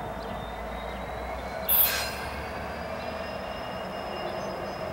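Norfolk Southern GP33ECO diesel switcher locomotive rolling slowly around a curve, its wheels squealing on the rail in thin, high, steady tones over the steady running of the locomotive. A brief, loud, sharp burst of noise stands out about two seconds in.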